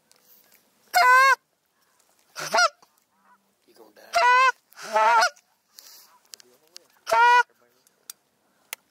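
Goose honking: five short, loud single honks at uneven intervals, the second one softer.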